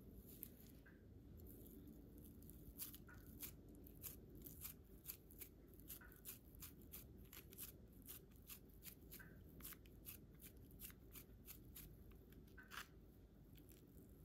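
Faint, quick clicks and squishes of raw beef mince being squeezed and pressed along a skewer by hand, starting about three seconds in, over a low room hum.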